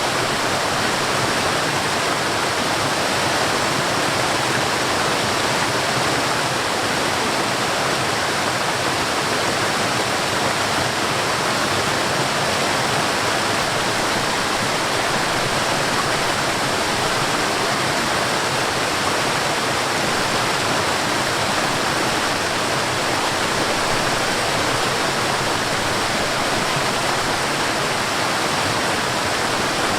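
Mountain stream and waterfall rushing in a steady, unbroken flow.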